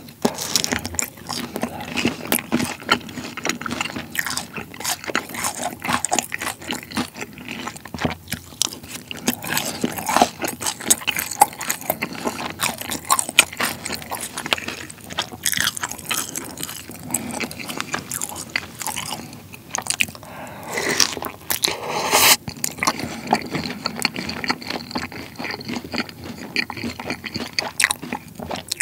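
Close-miked biting and chewing of tangsuyuk, battered Korean fried pork soaked in sweet-and-sour sauce: steady wet crunching and smacking, with a sharper bite about 22 seconds in.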